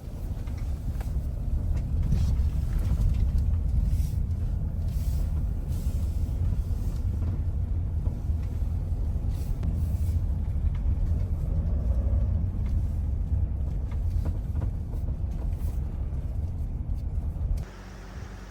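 A steady low rumble that cuts off suddenly near the end.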